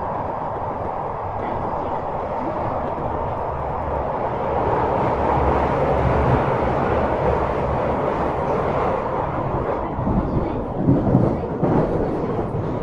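Kyoto Municipal Subway Tozai Line 50 series train running through the tunnel, heard from inside the car: a steady rumble and rush of wheels on rail that grows louder about four seconds in. Uneven knocks come through the running noise near the end.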